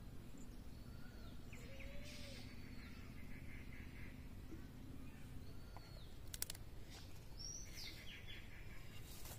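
Faint outdoor ambience: birds chirping now and then over a low rumble of background noise, with a few sharp clicks about six and a half seconds in.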